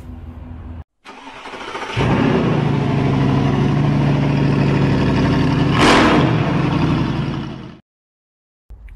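Mercedes-Benz W204 C-Class diesel engine being cranked and catching about two seconds in, then running steadily with a brief louder surge around six seconds in; it starts only with the starter bridged directly, since the key cannot crank it while communication with the transmission control module is lost. The sound cuts off abruptly near the end.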